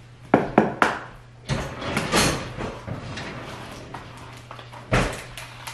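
Clicks and knocks of things being handled on a kitchen counter: three quick sharp clicks, a rustle about a second and a half in, and a louder knock near the end, over a steady low hum.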